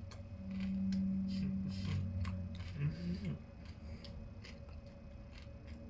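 Someone chewing a mouthful of sandwich with crunchy Wheat Thins: small crunches and mouth clicks throughout. Over them comes a long hummed 'mmm' of enjoyment for the first couple of seconds, and a shorter wavering hum near the middle.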